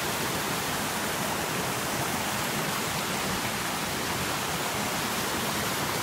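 Small waterfall spilling down a rock face into a pool: a steady rush of falling water.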